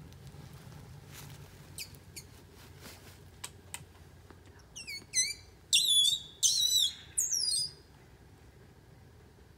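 A bird calling in woodland: a rapid series of sharp chirps, each sliding down in pitch, in four or five quick bursts starting about five seconds in. A few faint clicks come before them.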